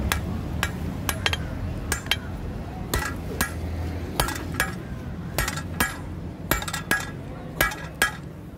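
Hand hammer forging a red-hot 20 mm steel rebar on an anvil: a steady series of sharp metal-on-metal blows, about two a second, each with a short bright ring.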